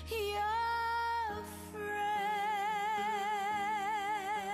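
A song with a female singing voice holding two long notes, the second with a steady vibrato, over soft accompaniment.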